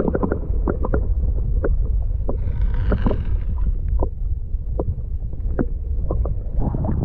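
Camera submerged in shallow lake water: a dull, steady low rumble of water moving against the housing, with scattered sharp clicks and pops.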